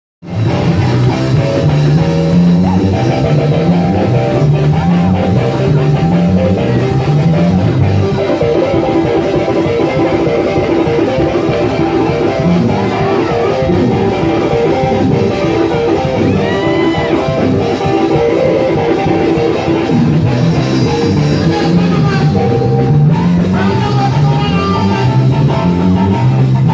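Band music with bass guitar, guitar and drums playing a steady groove, the bass climbing in repeated runs.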